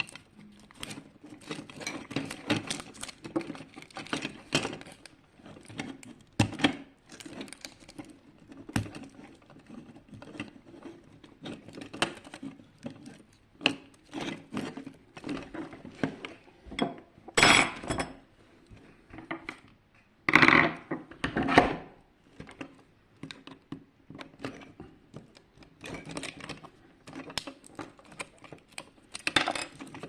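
Small plastic and metal parts of a projection alarm clock being handled and worked apart: irregular clicks, taps and light rattles, with a few louder knocks about two thirds of the way through.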